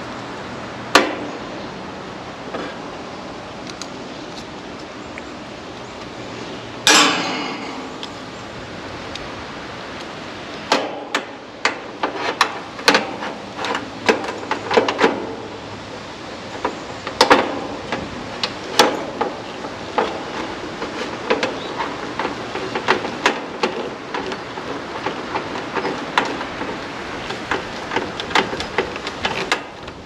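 Irregular metallic clicks and taps of pliers working the push-on wire connectors onto an AC condenser's run capacitor terminals, with a louder ringing metal knock about seven seconds in.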